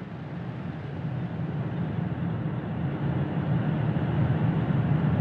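Falcon 9 first stage's nine Merlin 1D engines at liftoff: a dense, noisy rumble, strongest in the low range, growing steadily louder as the rocket climbs off the pad.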